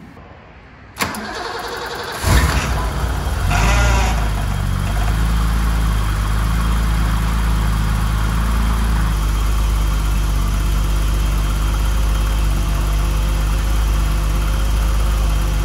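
1988 BMW E28's engine cranked and started: it catches about two seconds in, revs briefly, then settles into a steady idle.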